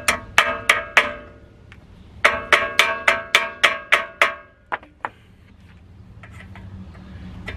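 A small hammer tapping on a stuck brake-pad retaining pin in a front disc-brake caliper. The metal strikes ring and come about three a second, knocking the rusted pin back and forth to loosen it: four taps, a short pause, a longer run of about eight, then two lighter taps.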